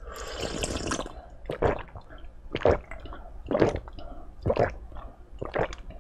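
A person drinking orange juice from a glass, close-miked: a sip to begin with, then five gulps about a second apart.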